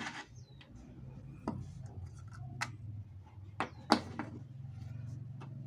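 Hard plastic pump parts and bolts being handled: scattered sharp clicks and taps, about six in all, the loudest about four seconds in, over a faint steady low hum.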